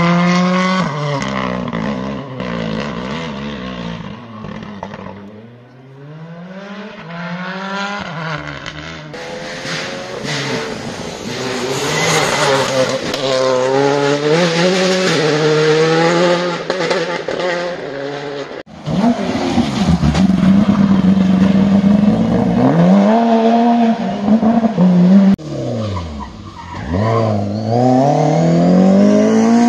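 Rally cars at full speed on a stage, one after another, engines revving hard: the pitch climbs and drops back repeatedly as they shift gear and brake for corners. The sound breaks off sharply about two-thirds of the way in and another car's engine comes in loud.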